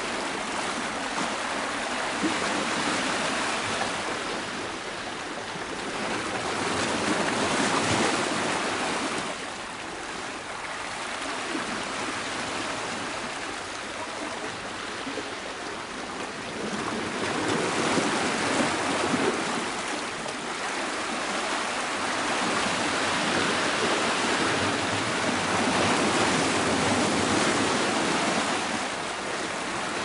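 Sea surf breaking and washing over rocks: a steady rushing noise that swells and eases every few seconds.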